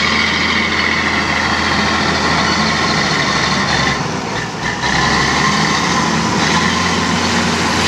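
Old crawler bulldozer's diesel engine running steadily under load as its blade pushes topsoil, with a high whine over the engine note. The sound dips briefly about four seconds in, then picks up again.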